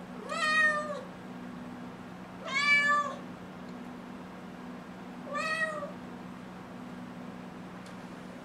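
A six-month-old kitten meowing three times, each meow under a second long and the last one softer, over a steady low hum. The kitten is asking to be let outside.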